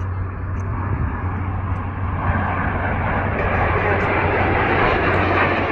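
Snowbirds' CT-114 Tutor jet aircraft passing overhead, their jet noise swelling from about two seconds in and loudest near the end.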